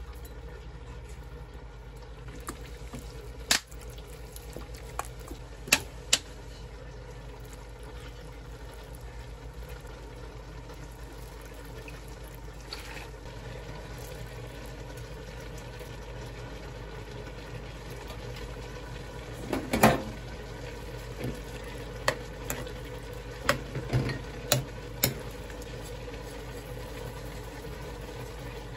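A steady low background hum under scattered sharp taps and clicks of a spoon against a ceramic bowl as a seasoning sauce of chopped vegetables is mixed. A few taps come early, and a close cluster comes about two-thirds of the way through.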